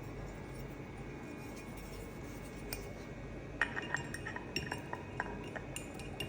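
Light metallic clinks and taps, a quick irregular series starting about halfway through, as pistons and connecting rods are handled and set down for weighing, over a steady low shop hum.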